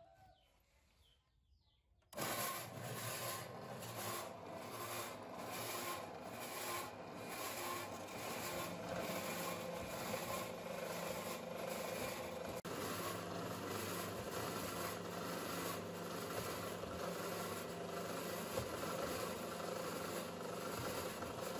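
Restored ASADA 120 metal cutter starting up about two seconds in, then running steadily as its blade saws through a rusty steel rod held in the chain vise: a continuous rasp of blade on steel over the motor. An even pulse about every half second or so is heard in the first several seconds of the cut.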